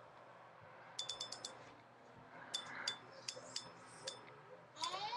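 Light metallic clicks from a Shimano Stradic CI4 spinning reel being handled and turned: a quick run of about six clicks about a second in, then scattered single clicks.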